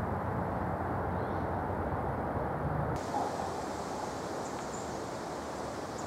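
Outdoor ambience: a steady low rumble of distant traffic that cuts off abruptly about three seconds in, giving way to a thinner steady hiss with a few faint high chirps.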